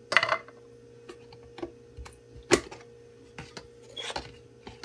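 A few scattered light clicks and taps of a measuring spoon against a spice container as curry powder is spooned out, the loudest about two and a half seconds in.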